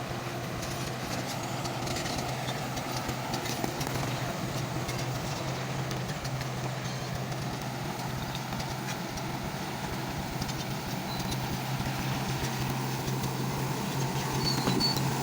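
Komatsu D155A-2 crawler bulldozer's diesel engine running steadily as the dozer works, pushing dirt: a constant low drone that gets a little louder near the end.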